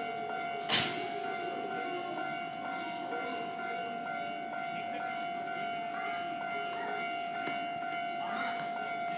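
Steady electrical whine from stopped electric trains standing at the platform, over a low murmur. A single sharp knock sounds just under a second in.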